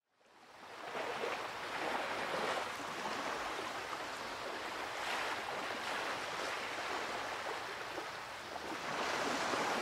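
Rushing, splashing water sound effect, fading in over the first second and swelling again near the end.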